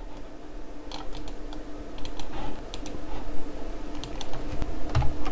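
Computer keyboard and mouse clicks: a handful of separate key presses as a web address is copied and pasted. The strongest click comes near the end. A faint steady hum runs beneath.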